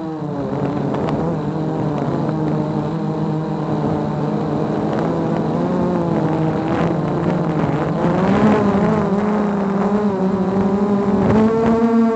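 Multirotor drone's propellers and motors whining close to the onboard microphone, a steady multi-toned hum whose pitch shifts as it manoeuvres low over the grass, rising about eight seconds in and again near the end.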